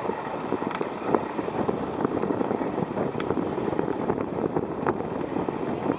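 Strong wind buffeting the microphone: a steady, gusty rush peppered with crackles and pops.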